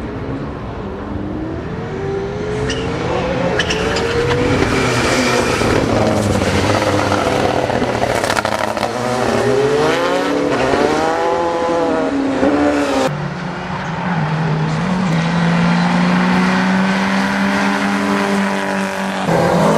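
Turbocharged race car engines revving hard, their pitch rising and falling as the cars accelerate and change gear. About thirteen seconds in, the sound changes abruptly to a steadier, lower engine note.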